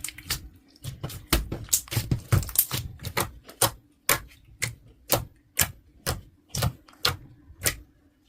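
Slime being pressed and worked by hand, making sharp clicking pops: a crowded run of clicks at first, then a steady pace of about two a second that stops near the end.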